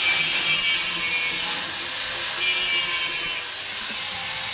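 A high-speed motor running with a steady high whine and a rushing hiss. The hiss grows harsher twice, at the start and again about two and a half seconds in.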